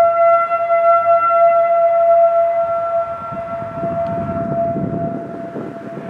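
Federal Signal 2001-SRN rotating siren sounding its steady single-tone alert at about 680 Hz. The tone is loudest in the first few seconds and weakens as the horn turns away. A low rumble comes in about halfway through.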